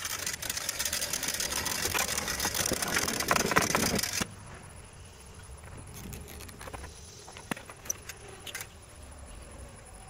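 A log is winched up steel loading ramps onto a portable sawmill bed with a hand-cranked winch: a loud, dense metallic clicking and scraping that stops abruptly about four seconds in, followed by a few scattered sharp clicks.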